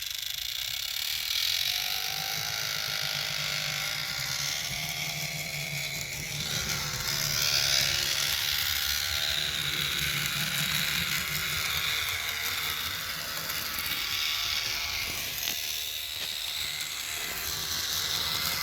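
Roco V90 (BR 290) model diesel locomotive running at high speed, its motor and drive giving a loud, steady mechanical whirring with a low hum, a little louder about halfway through. This is the unwanted running noise the owner wants diagnosed, which he guesses comes from the motor itself rather than the gears.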